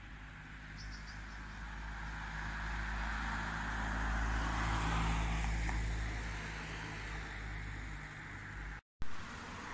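A car driving past on the road: engine hum and tyre noise swell to a peak about halfway through, then fade. The sound drops out for a moment near the end.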